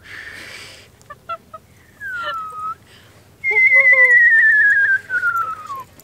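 Huskies whining, with a long, high, wavering whistle that slowly falls in pitch over about two and a half seconds in the second half, the loudest sound here, and short whines beside it.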